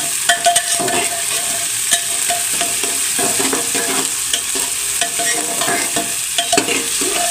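Sliced onions, garlic and whole spices sizzling steadily as they fry in mustard oil in an aluminium pressure cooker, while a metal spoon stirs them with a running series of scrapes and clicks against the pot. The onions are at the stage of being fried down until they turn red-brown.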